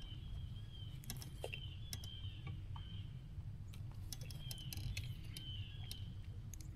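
Faint clicking and ticking of a spinning reel being cranked in short spells after a cast, with a thin wavering squeak between ticks, over a low steady hum.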